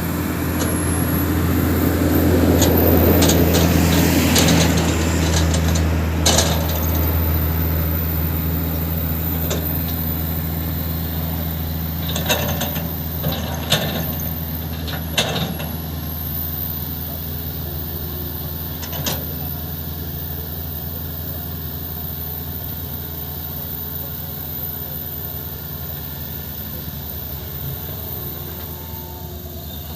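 Hydraulic excavator's diesel engine running steadily under load, with a swell of rushing noise a few seconds in and several sharp metallic knocks, the bucket or rock striking as it works.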